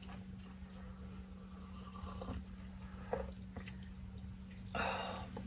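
Quiet eating sounds: a spoon in a paper cup of miso soup and sipping, with a few faint light clicks and a short louder noise near the end, over a steady low hum.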